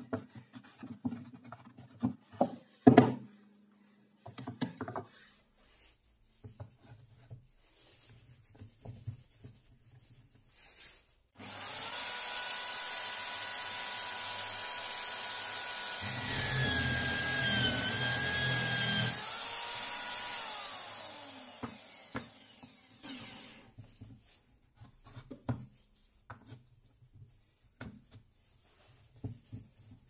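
Electric drill mounted in a homemade drill-press stand spins up with a steady whine. About midway the bit bites into a wooden block, and its pitch dips under load for a few seconds. It is then switched off and winds down. Before and after, loose wooden jig blocks are knocked and shifted into place.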